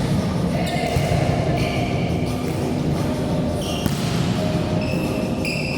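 A volleyball being struck and bouncing on a gym floor, a few sharp smacks spread over several seconds, over a steady background rumble in a large echoing hall.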